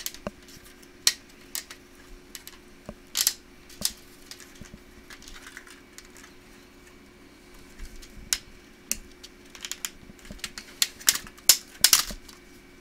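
Irregular clicks, taps and knocks of plastic laptop parts being handled, as a laptop's LCD screen panel and its frame are lifted and moved over the open case; the clicks come thicker and louder in the last few seconds, over a faint steady hum.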